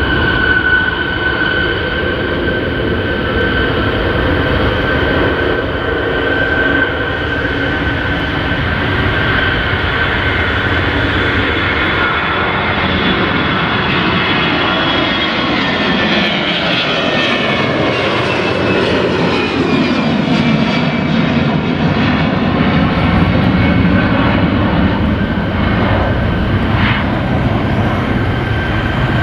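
Airbus A320 airliner's jet engines at takeoff thrust: a loud, steady roar with a high whine as it runs down the runway, lifts off and climbs out. About halfway through, the whine and roar sweep down in pitch as the jet passes and moves away.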